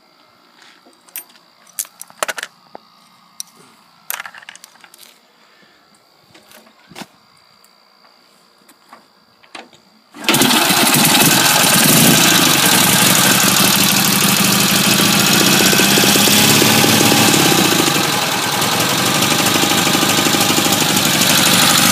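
A few light clicks and handling noises, then about ten seconds in the Chang Jiang's flat-twin engine starts suddenly and runs steadily at about idle.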